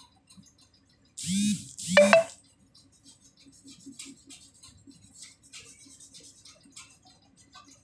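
Paintbrush dabbing and scratching red paint onto paper: faint, irregular scratchy ticks. About a second in, two loud short noises of unclear source cut across it, one after the other.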